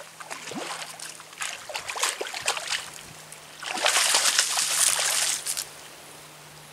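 Splashing and sloshing in shallow river water as a hooked bowfin thrashes and a landing net is scooped under it, with the biggest burst of splashing lasting about a second and a half, some four seconds in.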